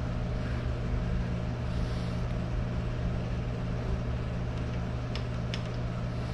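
Steady low mechanical hum of running shop equipment, with a couple of faint light clicks about five seconds in.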